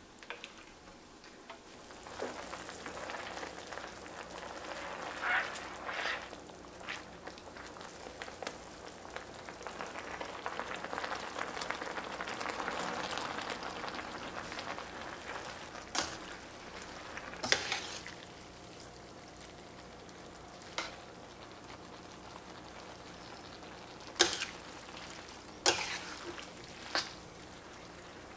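Sauce with shiitake mushrooms and scallions sizzling and bubbling in a stainless steel skillet as it is stirred with a wooden spatula. The sizzle swells to its loudest in the middle and dies down in the second half, with a few sharp knocks of utensils against the pan near the end.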